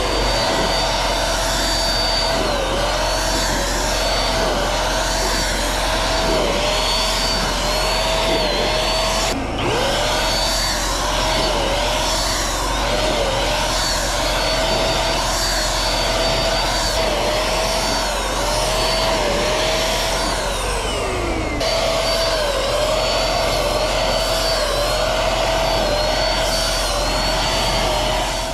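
Small handheld electric paint sprayer running with a steady motor whine whose pitch dips briefly again and again. About twenty seconds in it winds down, then starts again.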